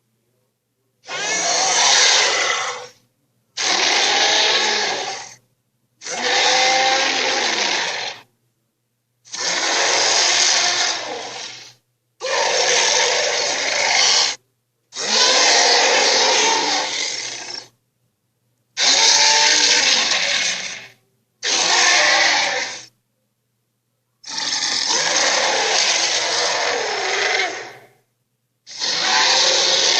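Red Claw's screech sound effect, a harsh, grating dinosaur cry, played again and again: about eleven screeches of roughly two seconds each, with short silences between them.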